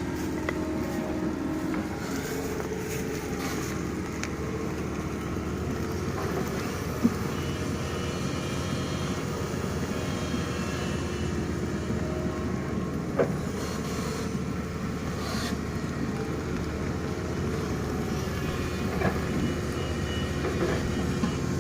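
Doosan DX225LCA excavator's diesel engine running steadily under load while it digs, with two sharp knocks about seven and thirteen seconds in and a few lighter clicks near the end.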